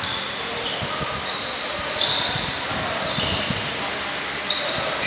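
Basketball shoes squeaking on a hardwood court, many short high squeaks in quick succession, with a basketball bouncing.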